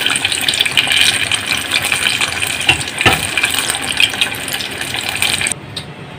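Coated chicken pieces deep-frying in a stainless steel pot of hot oil: a loud, steady sizzle with scattered sharp pops. This is the second fry that crisps the skin. The sizzle cuts off suddenly near the end.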